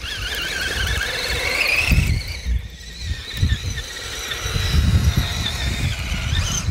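Electric motors and gear drives of scale RC 4x4 crawler trucks whining as they churn through snow, the pitch wavering up and down with the throttle.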